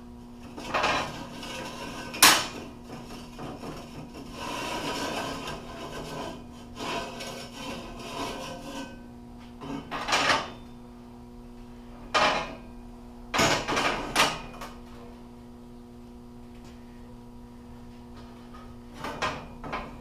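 Expanded-metal grill grate being shifted on its round steel frame on a metal workbench: metal scraping and rattling in the first half, with several sharp metal clanks scattered through it.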